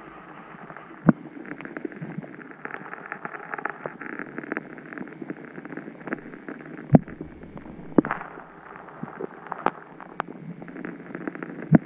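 Muffled underwater noise picked up by a submerged camera: a steady crackling wash of water with many small clicks. Three loud knocks stand out, about a second in, about seven seconds in and at the very end.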